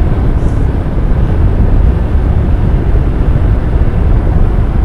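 Motorcycle riding at speed: steady wind rush on the helmet microphone, with engine and road noise underneath.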